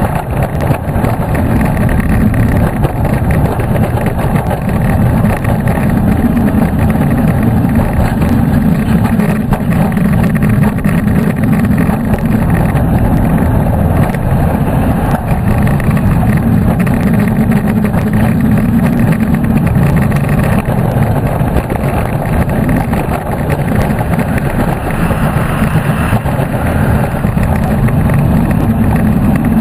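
Hopkins-built steel looping roller coaster train running through its elements at speed, heard from the front seat. The wheels make a loud, steady rumble on the steel track, mixed with wind rushing over the microphone.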